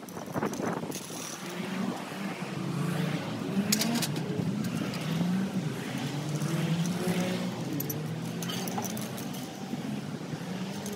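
Road traffic: a motor vehicle's engine running, its pitch rising and falling, with a few brief sharp hissing noises about half a second and four seconds in.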